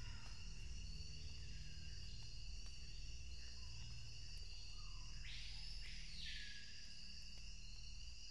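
Quiet ambient background music: a low drone under steady high tones, with one sweeping sound that rises and falls about five seconds in.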